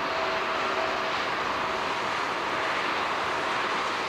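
Jet engines of a Boeing 767-300 freighter climbing away after takeoff: a steady rushing noise, with two faint humming tones that fade out within the first second or two.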